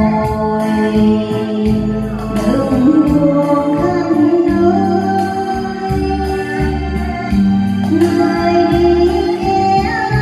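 A woman singing a Vietnamese song into a handheld microphone over a backing track, holding long notes and sliding between pitches.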